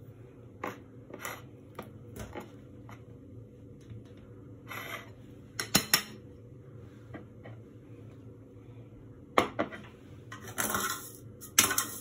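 A metal spoon clinking and scraping against a ceramic bowl and plate while scooping out thick strained yogurt (labneh): scattered clinks, the loudest about six seconds in, and a longer scrape near the end.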